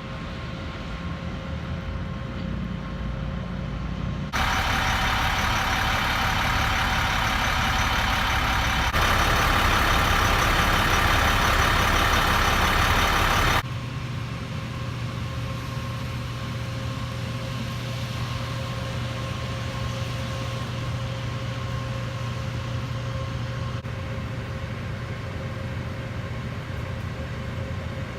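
Steady running noise from a motor vehicle, engine hum and road noise, cut abruptly several times. A louder, hissy stretch in the middle lasts about nine seconds.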